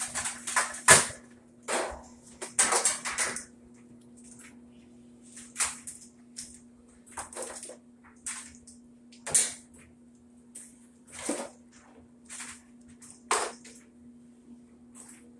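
Irregular clicks and knocks of hard plastic parts of a top-load washer being handled and moved, a quick cluster in the first few seconds and then single knocks every second or two, over a steady low hum.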